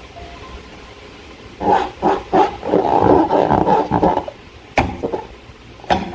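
Slime squelching and gurgling as it is squeezed and worked by hand, in irregular wet bursts lasting a couple of seconds, followed by two sharp clicks near the end.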